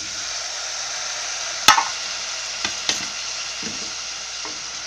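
Onions, garlic, ginger and freshly added chopped tomatoes frying in oil in a pressure cooker, giving a steady sizzle. A few sharp knocks cut through it, the loudest about a second and a half in.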